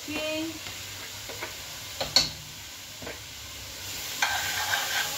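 Onion, tomato and seasonings frying in oil in a metal pot while a spoon stirs and knocks against the pot, with a sharp clack about two seconds in. The sizzling grows louder near the end.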